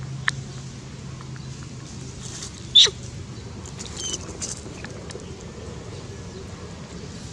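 A young macaque gives one short, shrill squeal that sweeps upward in pitch about three seconds in, followed a second later by a few fainter high squeaks. A sharp click comes just at the start.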